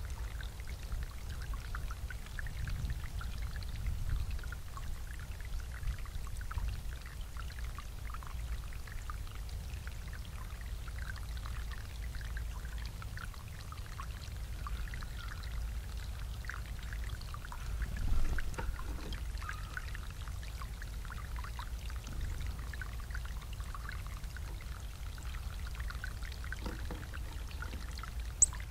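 Water from a backyard bubbler water feature welling up and pouring steadily, with a constant splashing trickle. A brief louder bump comes about two-thirds of the way through.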